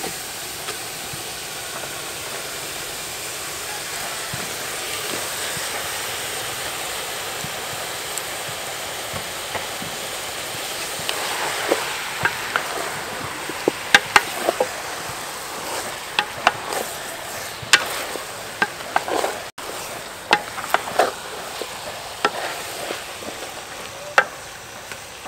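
Chopped raw cow leg sizzling as it goes into a hot metal pot of frying curry paste. A steady hiss is joined about halfway through by a wooden spoon stirring the meat, with repeated knocks and scrapes against the pot.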